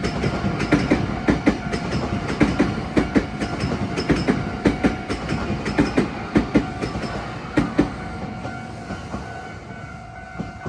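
Hankyu 1000 series eight-car electric train passing, its wheels clacking over the rail joints in a quick run of paired clicks over a steady rumble. It fades away near the end.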